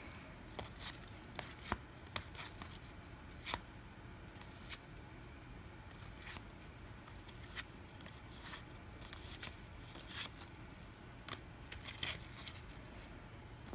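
1999 Upper Deck Choice baseball cards being handled and flipped through: soft, irregular clicks and swishes of card stock, with a faint steady low hum underneath.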